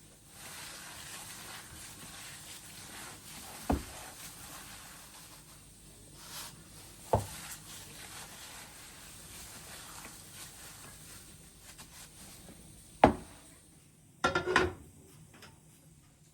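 Household objects knocked or set down on a hard surface: three sharp separate knocks, then a quick rattling clatter near the end, over a soft steady hiss.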